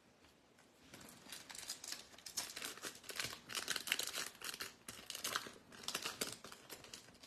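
Foil wrapper of a Topps Chrome trading card pack being torn open and crinkled, in irregular crackly rustles starting about a second in.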